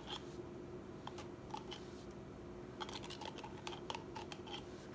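Faint light clicks and scrapes of a teaspoon scooping mayonnaise out of a jar and dropping it into a bowl, busier about three seconds in.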